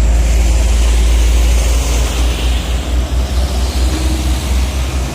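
Heavy road traffic passing close: a large vehicle's low engine rumble with tyre noise, loudest in the first half and easing after about three seconds.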